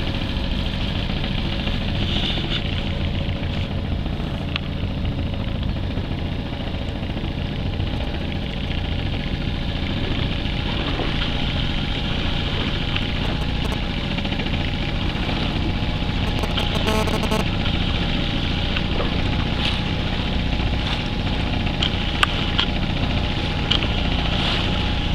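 Boat engine running steadily while the boat moves across calm sea.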